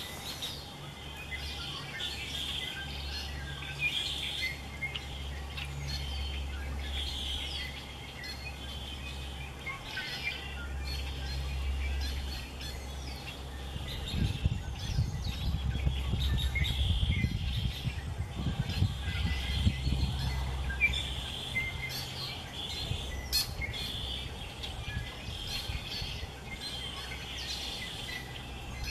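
Small birds chirping, with short high calls repeating throughout over a steady low hum. A low rumble comes in about halfway through and lasts several seconds.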